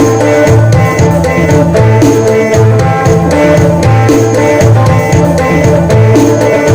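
Isan phin (northeastern Thai lute) music in the upbeat phin sing style: plucked phin melody over a steady drone, with bass and a drum beat pulsing about once a second.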